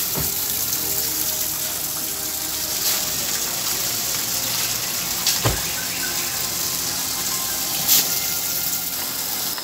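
Steady rush of flowing river water, with a couple of brief knocks about five and a half and eight seconds in.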